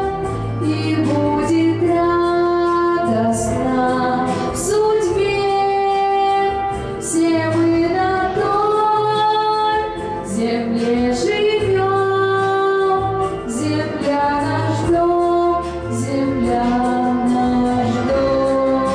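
A young woman singing a pop song into a microphone over a backing track, holding long notes in the melody above a steady bass line.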